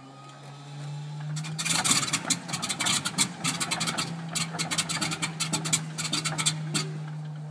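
Radial aircraft engine starting cold: a rapid, uneven run of firing pops as the cylinders catch, beginning about a second and a half in and settling by the end, over a steady low hum. The engine has not been pre-warmed, so it is reluctant to fire evenly.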